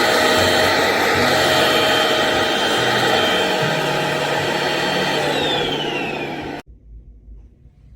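PRETTYCARELIFE cordless stick vacuum's motor running with a steady high whine over a loud rush of air. About five seconds in, the whine starts to fall in pitch, and soon after the sound cuts off abruptly, leaving faint room tone.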